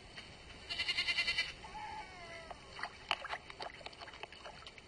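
Young wild goat bleating: a short, high, quavering bleat about a second in, then a lower call falling in pitch. After that come a few sharp clicks.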